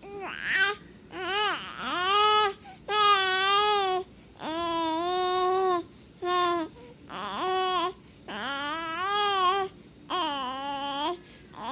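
A four-month-old baby crying in a string of about nine wavering cries, each half a second to a second and a half long with a short breath between. It is the fretful crying of an infant sick with fever, cough and a cold.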